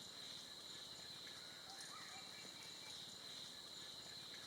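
Faint, steady high-pitched drone of insects in tropical forest, with a few short, faint bird chirps about two seconds in.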